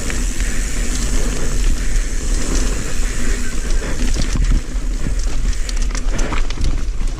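Mountain bike rolling fast over a rough dirt trail: tyre noise with a heavy wind rumble on the microphone. Frequent clicks and rattles of the bike over the bumps come thicker in the second half.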